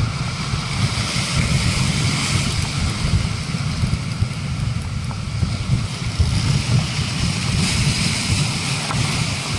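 Rough sea washing and foaming over shoreline rocks, with a gusting wind rumble on the microphone underneath.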